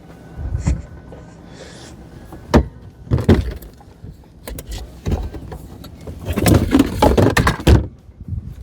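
Knocks and clattering in a pickup truck bed as tools are fetched from the toolbox at the front of the bed, with a few scattered bumps and then a dense burst of clatter near the end.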